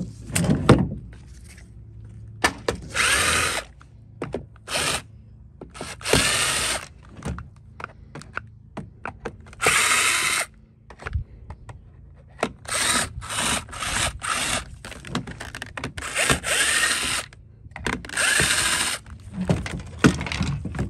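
Cordless drill-driver running in about seven short bursts, backing screws out of the vacuum's plastic housing, with clicks and knocks from handling the plastic parts between bursts.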